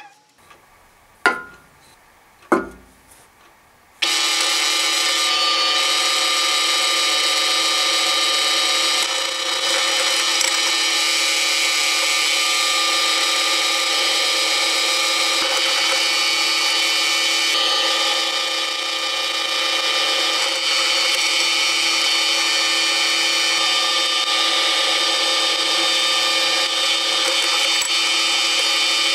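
Two sharp clacks, then a bench drill press starts about four seconds in and runs steadily, its bit drilling holes through the steel of an old chainsaw bar.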